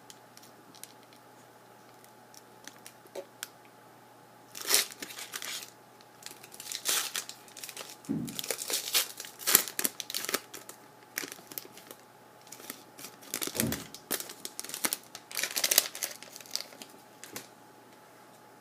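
Trading card pack wrappers being torn open and crinkled by hand in repeated crackling bursts, with a couple of soft thumps as things are handled.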